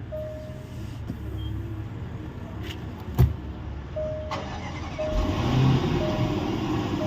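A 2017 Range Rover's warning chime as the ignition is switched on: one beep at the start, then beeps about once a second from about four seconds in. A sharp click comes about three seconds in, and a steady rushing noise from the car builds from about five seconds in.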